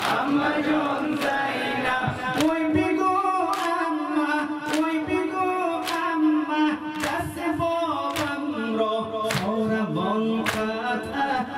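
Male voices singing a Persian noha lament in a slow, drawn-out melody, with a crowd beating their chests in unison (sineh-zani), a sharp slap just under once a second.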